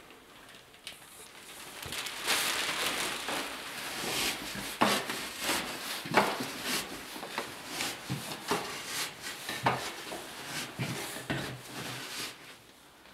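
A wooden pole tamping loose sawdust down into a steel sawdust-stove canister, packing the fuel tight around the central pipe. Dull strikes come roughly every half second among the rustle of the sawdust and the knock of the metal can, and they die away near the end.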